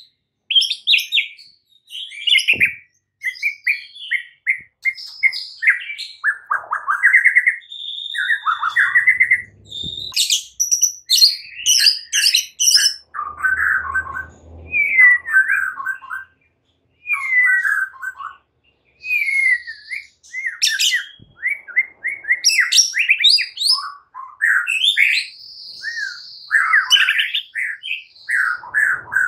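White-rumped shama singing a long, varied song of whistles, rapid trills and harsh chattering phrases, broken by brief pauses, in the combative style keepers call fighting song.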